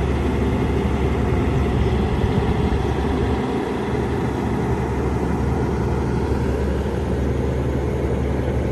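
Heavy diesel engine of construction machinery running steadily at a constant speed.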